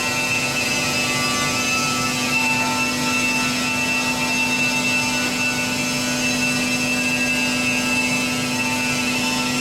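Pet-bedding baler machine running steadily: a constant low hum and a high whine over a mechanical hiss, without pauses or knocks.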